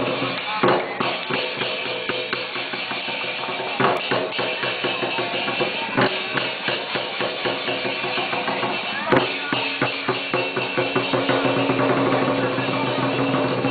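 Chinese lion dance drum beating a fast, continuous run of strokes with cymbals crashing along, and heavier accented strikes standing out every few seconds.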